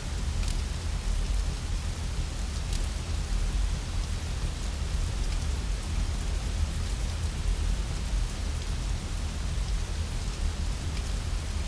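Steady rain with a deep, constant low rumble beneath it, and a few sharp crackles from a wood fire, two of them about half a second and nearly three seconds in.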